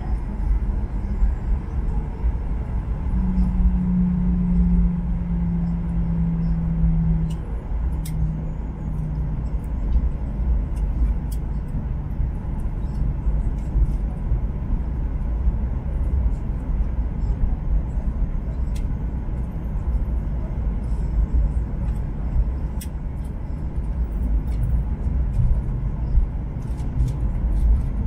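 Cabin noise of a Boeing 737-800 taxiing: the steady low rumble of the jet engines at taxi power and the wheels rolling, with faint rattles and clicks from the cabin. A steady hum comes in about three seconds in and fades out around nine seconds.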